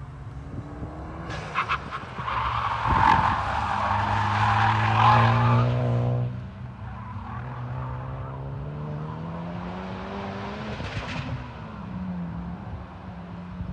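Honda Civic Type R cornering hard on track: its tyres squeal for several seconds over the steady drone of the engine. Then the squeal stops and the engine note carries on quieter as the car pulls away, rising and falling once more near the end.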